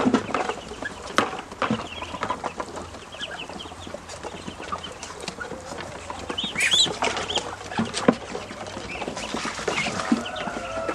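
A group of ducklings peeping: many short, high, rising-and-falling calls overlapping, with scattered sharp taps among them.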